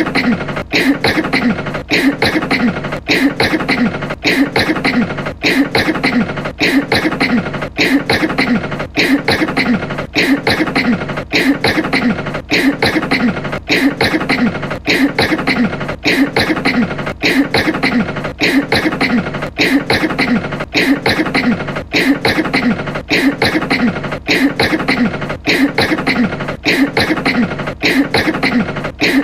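A voice coughing again and again in a steady, even rhythm, a coughing fit brought on by smoke.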